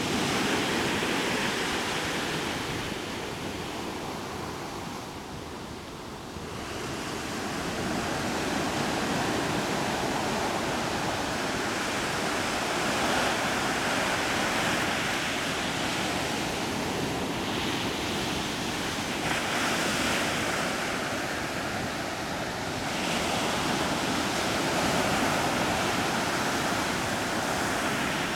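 Ocean waves washing, mixed with wind. It is a steady rushing noise that swells and eases slowly, with a brief lull about five seconds in.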